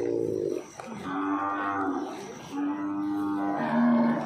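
Zebu cattle mooing: a run of three or four long, even-pitched moos in a row, the last one the loudest and a little lower.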